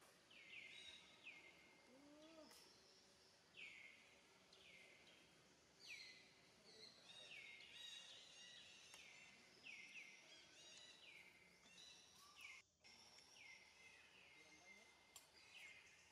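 Faint outdoor background with a bird calling over and over: short high notes that each slide down in pitch, about one a second.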